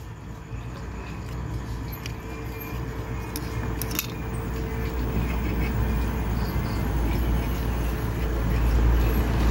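Low rumble of a road vehicle's engine growing steadily louder, with a few light clicks of small metal gear-case parts being handled.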